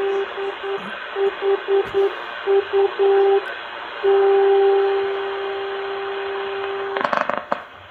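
Non-directional beacon received in AM on a Malahit SDR receiver. Its Morse-code identifier is keyed as a low tone over steady static hiss, then it holds as one long unbroken tone for about three seconds. Brief crackling comes near the end.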